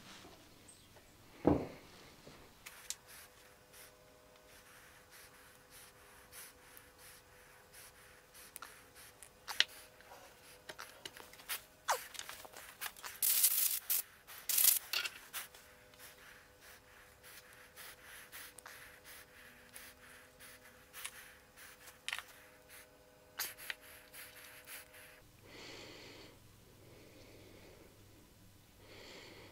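Small metal brake master cylinder parts handled on a paper-covered workbench: a single sharp knock about a second and a half in, then scattered clicks, taps and rubbing, busiest midway. Breathing near the end.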